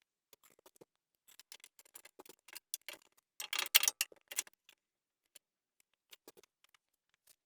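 Light clicks and taps of wooden parts and hand tools being handled, with a denser run of clicking and scraping about three and a half to four and a half seconds in.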